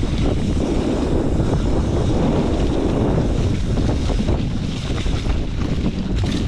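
Heavy wind buffeting on the microphone while riding a vehicle, with a steady low rumble underneath.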